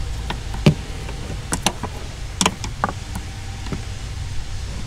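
Scattered metallic clicks and taps as long-nose pliers grip and work a spring hose clamp on the PCV hose, about half a dozen sharp ticks over a low steady hum.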